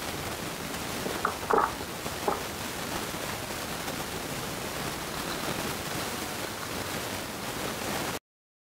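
Kitchen knife cutting through a steamed chicken-and-vegetable nugget slab, its blade giving three short knocks on the cutting surface between about one and two and a half seconds in, over a steady hiss. The sound cuts off abruptly near the end.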